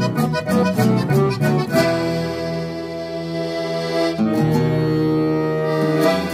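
Piano accordion and acoustic guitar playing together: quick strummed chords for the first couple of seconds, then long held accordion chords that change about four seconds in and again near the end.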